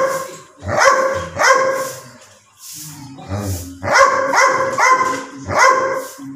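Doberman barking: a run of sharp barks, a pause of about two seconds, then four more barks in quick succession.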